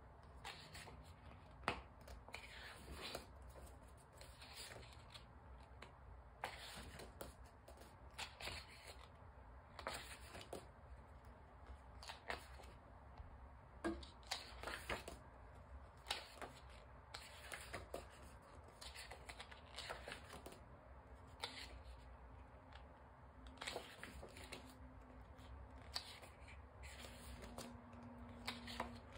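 Quiet handling of paper album contents by hand: cards, pages and inserts being shuffled, turned and set down, with irregular soft clicks and rustles.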